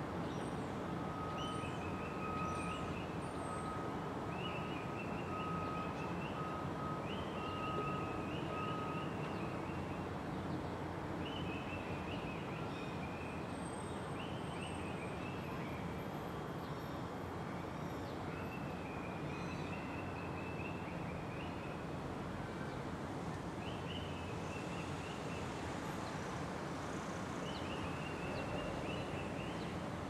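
Steady outdoor background noise with a small bird calling in short chirpy phrases every two or three seconds. A faint, pulsing high tone runs through the first third.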